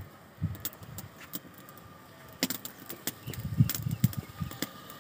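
Faint scattered crackles and small clicks, with a few low muffled thumps in the second half.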